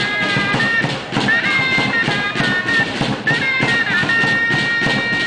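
Chirimía, a double-reed shawm, playing a high reedy melody in short phrases over steady drum beats. Near the end it settles on a long held note.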